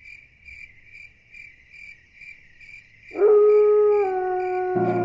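Crickets chirping steadily, about two chirps a second. About three seconds in, a loud sustained note from the song's opening comes in and sags slightly in pitch, and more instrumental notes join near the end.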